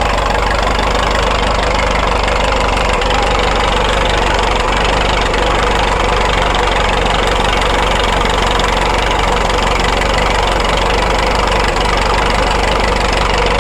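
1927 Fordson Good Roads road roller's four-cylinder engine idling steadily.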